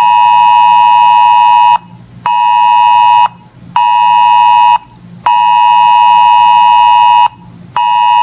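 A weather alert radio's alarm buzzer sounding a loud, harsh beeping tone in pulses of one to two seconds separated by half-second gaps, signalling an incoming weather alert.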